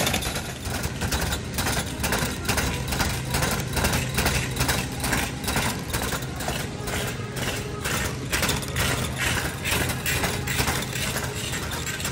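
Shopping cart rolling on a store floor, its bad wheel clattering in an even rhythm of about three knocks a second, over a steady low hum.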